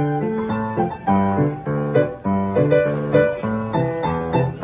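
Solo piano playing an old Taiwanese-language song, a melody over a repeating bass-and-chord accompaniment.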